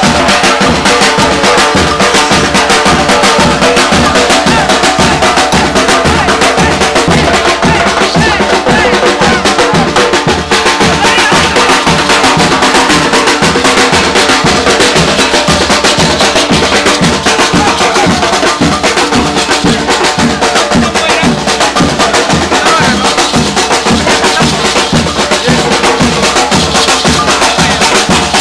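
Batucada-style drum ensemble playing a loud, fast, steady rhythm, with deep drum strokes under sharper higher percussion.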